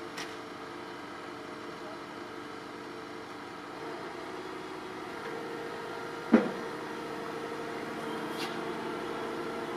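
Crawler-mounted piling rig's diesel engine running steadily. A single sharp knock about six seconds in is the loudest sound, and there are a couple of faint clicks.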